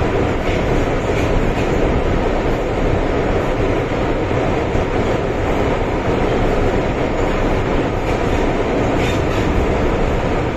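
MTR M-Train electric multiple unit (cars A235/A228) running along the line, a steady rumble heard from inside the passenger car.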